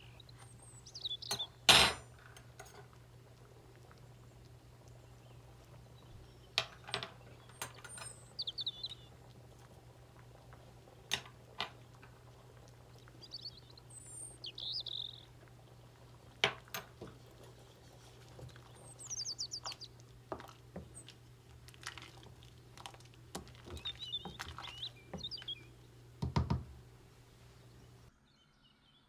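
Kitchen utensils clinking and knocking against pots and dishes every few seconds over a steady low hum, with small birds chirping in the background. The hum cuts off a second before the end.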